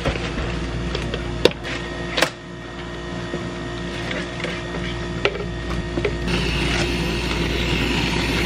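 Plastic blender jar and cup knocking on the counter a couple of times while a smoothie is poured, then a whipped-cream dispenser hissing as it sprays cream onto the drink in the last couple of seconds, over a steady low machine hum.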